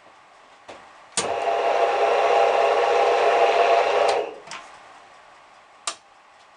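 VSN R-20 bench drill press switched on with a click about a second in. It runs at a steady pitch for about three seconds, then is switched off with another click and quickly dies away.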